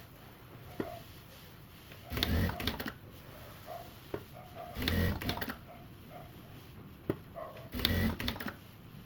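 Sewing machine stitching in three short runs of under a second each, about three seconds apart.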